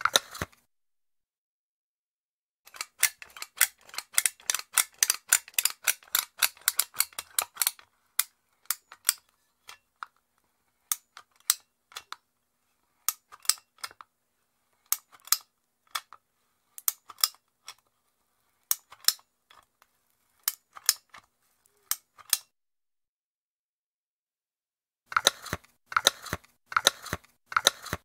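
Empty metal caulking gun worked by hand, its trigger and pull-back plunger rod giving sharp metallic clicks. There is a fast flurry of clicks for about five seconds, then sparser clicks in ones and twos, a pause, and another fast flurry near the end.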